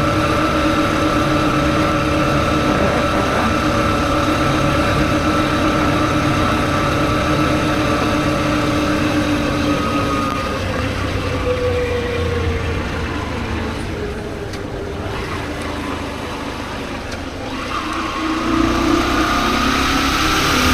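Motorcycle engine running under way, its note sliding down and quietening about ten seconds in, then rising again as it accelerates near the end.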